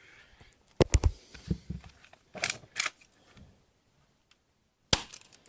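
Spring-powered airsoft pistol with a metal slide being handled, cocked and fired: a few sharp mechanical clicks and clacks, a strong pair about a second in, two more around the middle and another sharp one near the end.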